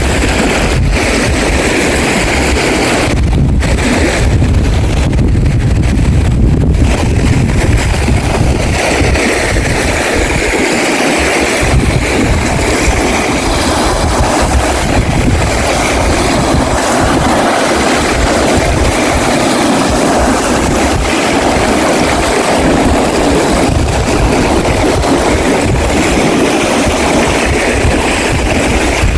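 Wind buffeting the microphone over a steady rush of water or surf.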